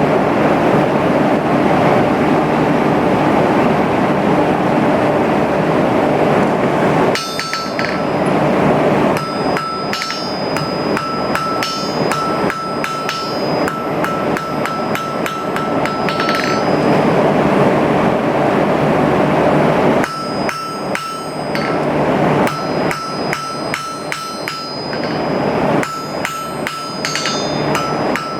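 Hand hammer striking stainless steel on an anvil in quick runs of blows, the anvil ringing clearly between strikes. For the first several seconds a steady rushing noise covers the sound before the ringing blows stand out.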